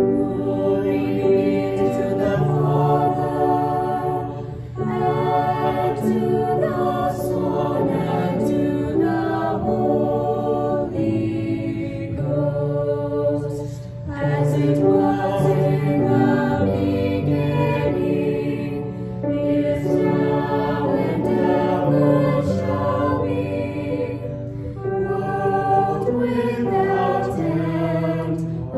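Choir singing a hymn in held notes over a steady low accompaniment.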